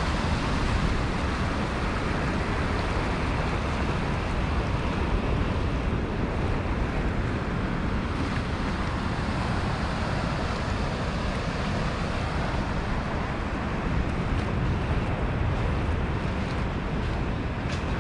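Steady rush of small surf and churning water where waves run into the river-mouth channel, with wind noise on the microphone.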